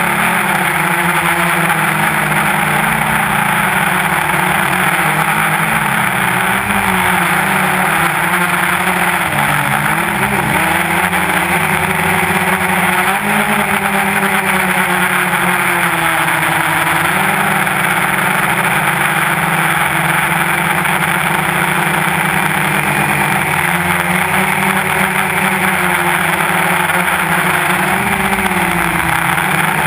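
Quadcopter's electric motors and propellers buzzing steadily, heard close from a GoPro mounted on the craft, their pitch wavering a little as the throttle changes, over a constant rush of prop wash.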